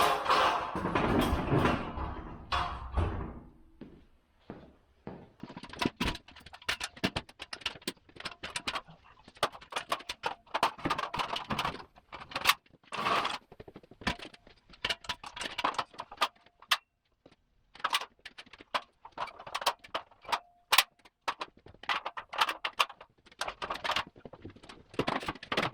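Handling noise: a loud rumbling clatter for the first three seconds, then a long run of separate clunks, knocks and clicks with some rustling, as metal parts and packaging are moved about.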